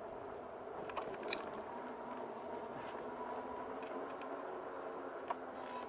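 Faint steady running hum and rolling noise of a Rad Power Bikes RadMini Step Thru electric bike on the move, with a few light clicks about a second in and another near the end.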